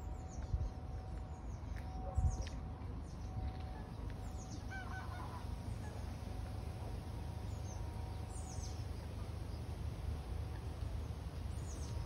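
Outdoor lakeside ambience: small birds give short downward-sweeping chirps every few seconds over a low wind rumble. A goose honks briefly about five seconds in.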